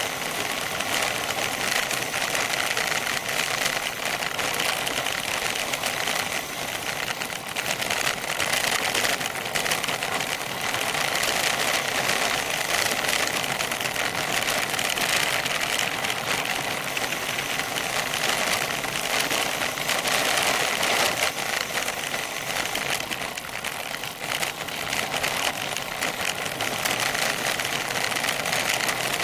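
Bicycle coasting fast down a gravel road: continuous crunching of tyres over loose gravel mixed with rapid rattling and clicking, heard through a camera mounted on the bike's seatpost.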